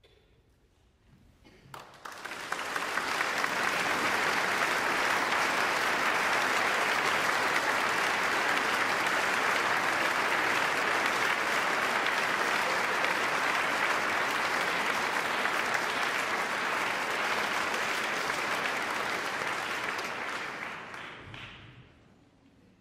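A concert audience applauding after a solo piano piece ends. The applause starts sharply about two seconds in, holds steady, and fades away near the end.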